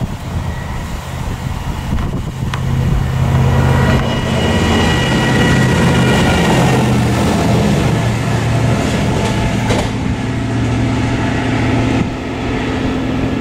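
Diesel engine of a Volker Rail track maintenance machine passing along the line, a steady low engine note with a faint high whine above it, loudest about four to eight seconds in.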